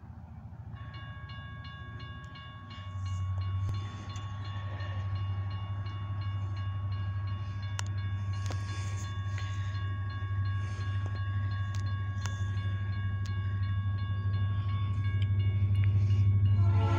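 A railroad crossing bell starts ringing steadily about a second in as the crossing signals activate. Under it, the low rumble of an approaching diesel train grows louder, and the locomotive's horn starts sounding right at the end.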